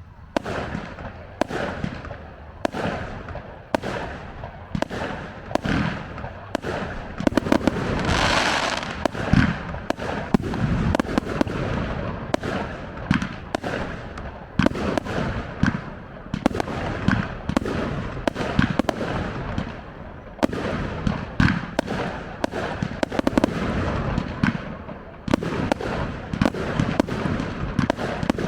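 Fireworks display: aerial shells bursting in quick succession, bang after bang, with a dense stretch of crackling about eight seconds in.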